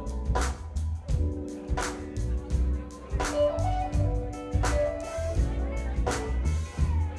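Live funk band playing, a deep electric bass line and drums keeping a steady beat under held keyboard chords and a moving melody line.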